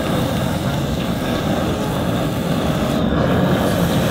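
Handheld kitchen blowtorch burning with a steady, continuous hiss as it sears the tops of plated apple desserts.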